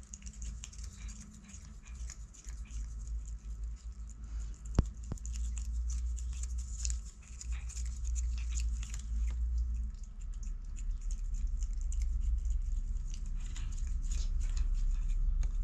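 A cat nibbling and chewing catnip leaves: many small crisp clicks and leaf rustling over a steady low rumble, with one sharper click about five seconds in.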